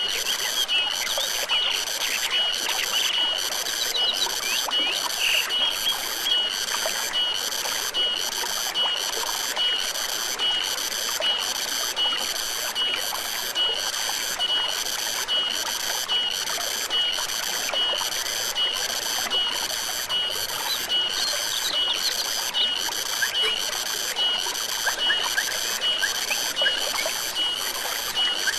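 Forest stream running steadily, with an animal, likely an insect, calling in an even rhythm of high pulsed chirps about one and a half times a second, and occasional short bird chirps.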